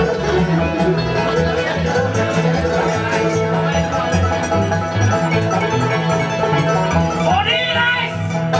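Live bluegrass band playing: banjo, fiddle, acoustic and resonator guitars over an upright bass, with a steady bass line.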